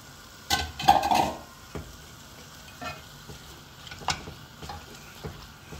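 Wooden spatula stirring and scraping chopped vegetables and chicken in a stone-coated frying pan, over a light sizzle of frying in hot oil. A louder clatter of spatula on pan comes about a second in, then scattered short knocks and scrapes.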